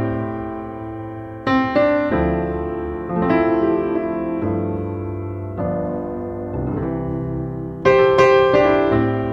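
Slow background piano music: sustained chords, a new one struck every second or two.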